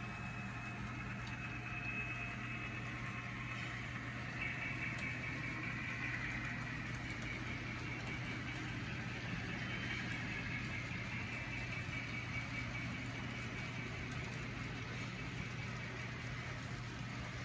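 Engine sound from sound-equipped HO scale model diesel locomotives running steadily as the model freight train rolls past, with a high whine that wavers in pitch over the rolling noise.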